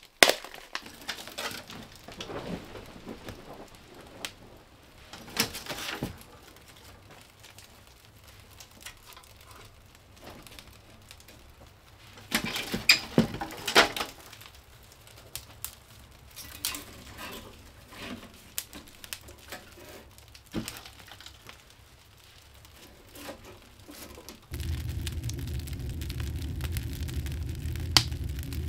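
Sticks and firewood being handled, knocked together and snapped while a woodstove fire is laid, with scattered cracks and a burst of louder knocks about halfway through. Near the end a steady low hum starts abruptly.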